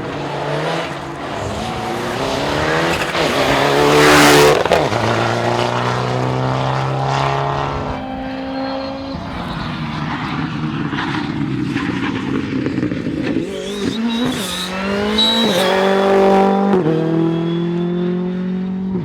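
Rally car engines revving hard, pitch climbing and dropping through repeated gear changes as the cars pass, loudest about four seconds in.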